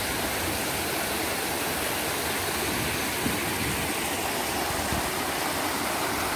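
Shallow river water rushing over a low weir and around concrete stepping stones: a steady rushing noise.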